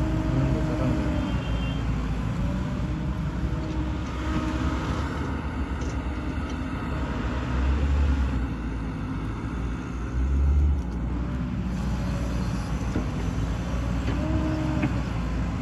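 Diesel engines of a Hyundai crawler excavator and a Tata tipper truck running as the excavator digs wet mud and loads it into the truck. The engine note rises and falls as the arm swings and dumps, with two louder low surges around the middle.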